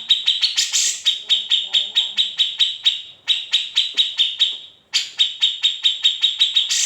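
Cucak jenggot (brown-cheeked bulbul) singing a fast, even trill of sharp, high notes at about eight a second. It breaks off briefly about three seconds in, falls silent for a moment near the middle and starts up again.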